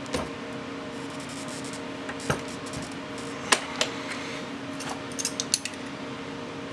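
Scattered small metallic clicks and clinks from a cartridge being handled in the shell holder of a reloading press and from a dial caliper, the sharpest about three and a half seconds in and a quick run of them near the end. A steady low hum runs underneath.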